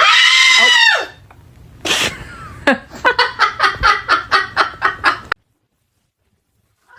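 A parrot screaming: one loud call about a second long that rises and falls, then after a pause a fast run of short repeated squawks, about five a second, that cuts off suddenly.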